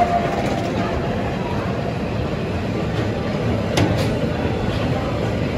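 Freight train of double-deck car-carrier wagons rolling past along the platform: a steady rumble of wheels on rail, with a couple of sharp clicks about four seconds in.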